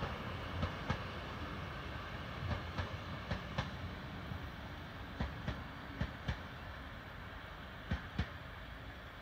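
Passenger coaches of a departing train rolling away over the track. A low rumble fades slowly, broken by sharp wheel knocks that mostly come in pairs about a third of a second apart, every second or two.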